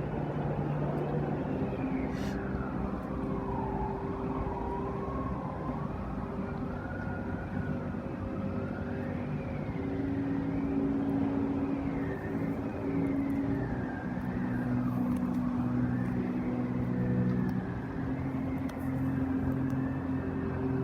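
Light-and-sound show soundtrack played over outdoor loudspeakers. Low held drone tones shift every few seconds under a single high tone that slowly wavers up and down, with wind rumbling on the microphone.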